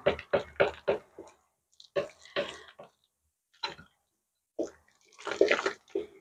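Wooden spoon stirring a thick mashed-potato mixture in a glass bowl: quick squelching strokes, about four a second at first, then scattered strokes with short pauses and a busier run near the end.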